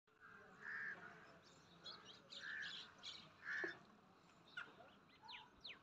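Faint birdsong: birds calling and chirping, with three louder short calls in the first half and a few quick downward-sweeping whistles later.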